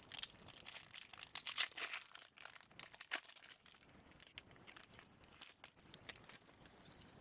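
A foil trading-card pack wrapper being torn open and crinkled, with dense crackling for the first two seconds, then scattered lighter crinkles and ticks.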